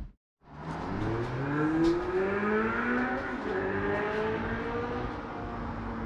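Car engine accelerating on the street, its note rising over a few seconds, starting about half a second in.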